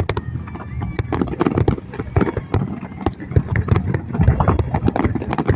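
Fireworks going off in rapid succession: a dense run of bangs and crackles over a low rumble, with a few faint whistles.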